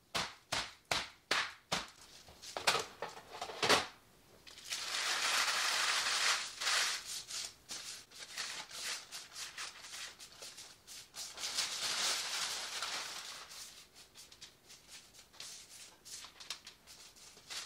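Baked ginger cookies and a metal sheet pan clattering on a stone counter: a quick run of clicks and knocks, then stretches of parchment paper rustling as the cookies are slid off the pan onto it.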